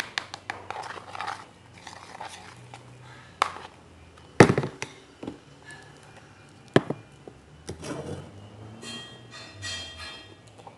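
Scattered light taps and knocks of a cup, small spoon and glue bottle being handled while glue is added to the slime mix, with the loudest knock about four and a half seconds in.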